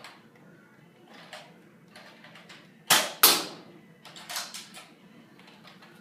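Nerf blaster shots: two sharp pops about a third of a second apart, the loudest sounds here, followed about a second later by a few fainter knocks and clicks.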